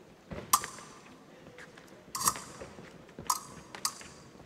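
Épée blades clashing: four sharp metallic clanks with a brief ring, one about half a second in, one near the middle and two close together later on.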